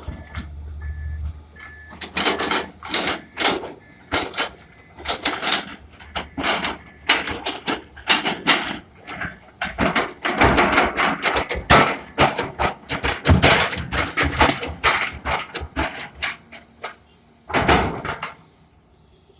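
Excavator digging and moving dirt: a long run of irregular scraping and clattering crunches from the bucket and soil, stopping shortly before the end.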